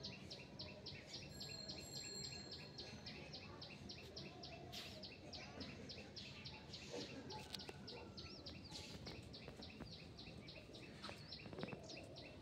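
Faint, steady run of short high-pitched chirps, about five a second, over outdoor background noise.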